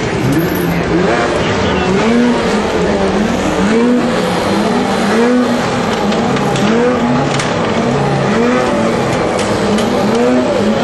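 Racing snowmobile engines revving repeatedly, the pitch rising and falling about once a second.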